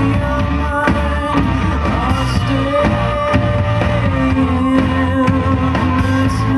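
A pop song with a singer and a steady bass beat, played loud through a Fenda F&D F550X 2.1 speaker system with its subwoofer.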